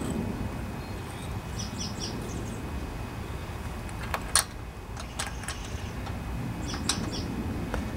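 A few sharp clicks and taps from handling the lawnmower carburetor's float bowl and its bolt, the loudest about four seconds in, with small birds chirping a couple of times over a steady low outdoor background.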